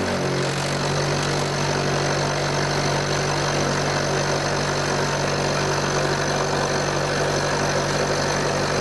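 Milling machine running under load, a high-speed steel end mill side-cutting a steel block, giving a steady motor hum over the noise of the cut. Heavy milling sets up a vibration that rattles the machine's top cover.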